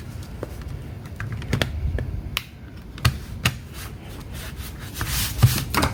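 Scattered light plastic clicks and taps from handling a laptop and its replacement battery, with a short rustling scrape about five seconds in.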